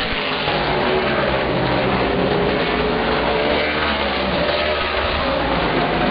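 A pack of Outlaw Super Late Model stock cars racing around the oval, several V8 engines running hard together. Their overlapping pitches rise and fall steadily as the cars go past.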